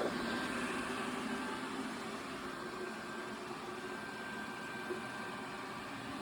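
Xiaomi Robot Vacuum S20 running mid-clean: a steady whirr and hiss from its suction fan and brushes, with a faint steady whine.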